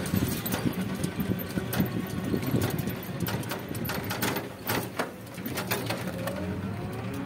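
A vehicle rattling and clattering as it rolls along a road, with many small clicks and knocks over a low rumble and a faint whine.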